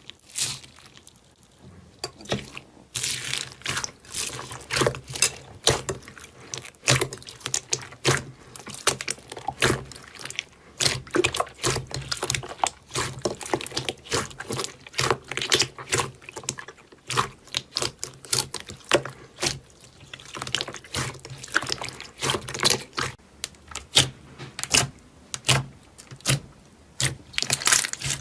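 Slime being worked and squished, making rapid, irregular wet clicks and pops.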